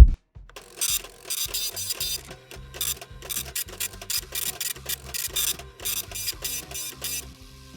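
A machine running in a rapid series of short rasping strokes, about two or three a second, over a low steady hum.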